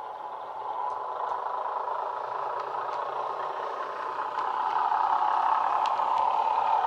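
Sound-fitted Bachmann Class 121 model railcar playing a recorded diesel railcar engine through its small on-board speaker, running steadily and growing louder about halfway through as the model approaches, with a few faint clicks.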